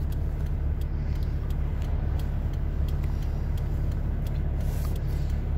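Car engine and tyre noise heard from inside the cabin while driving in traffic: a steady low rumble with a few faint clicks.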